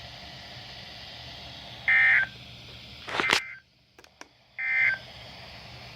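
Weather-radio receiver audio between spoken messages: a steady hiss broken by two short touch-tone-like beeps about three seconds apart. Between the beeps there is a louder sharp burst, then about a second of dead air with a couple of clicks.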